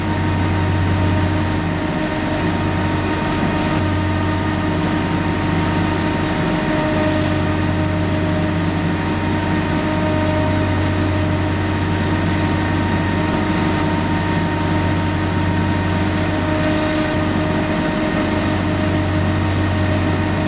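John Deere 3025e compact tractor's three-cylinder diesel engine running steadily at an even pitch under load, driving an 8-foot Del Morino rear finish mower through tall grass.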